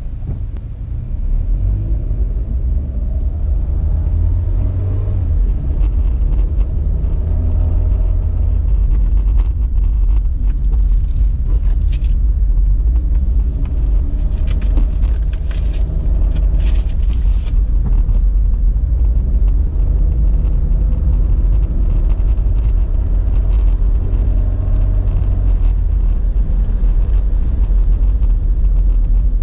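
A car's engine and road noise heard from inside the cabin while driving at speed, with a heavy low rumble and the engine note rising and falling. A spell of sharp ticks and rattles comes about halfway through.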